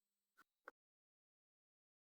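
Near silence: two faint, very short clicks in the first second, then the sound drops out completely.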